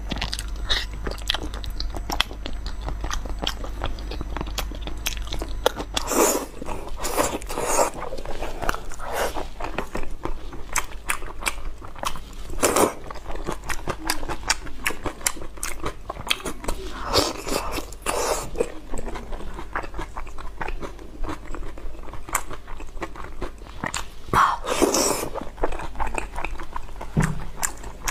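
Close-miked eating sounds of sticky braised meat being bitten and chewed: wet chewing and smacking, with louder bites and slurps every few seconds.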